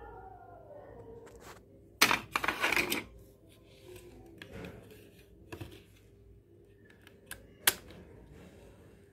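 Plastic clicking and rattling from an opened mini cassette player being handled, with a dense burst of rapid clicks about two seconds in and a few single sharp clicks later. A faint steady hum runs underneath.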